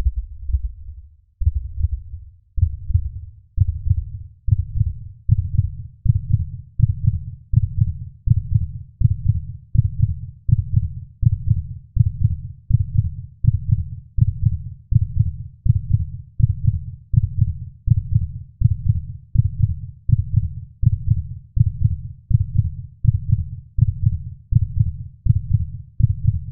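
Heartbeat sound effect: a steady run of low thumps that speeds up gradually, from about one beat every 1.3 seconds to a little faster than one a second.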